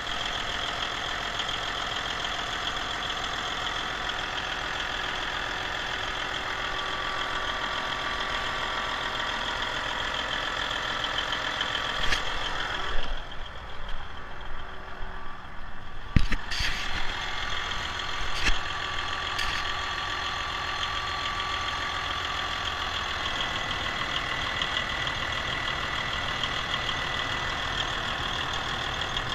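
Detroit Diesel Series 60 12.7-litre turbocharged inline-six diesel idling steadily. Around the middle the sound goes duller for a few seconds, and a few sharp knocks are heard, the loudest about halfway through.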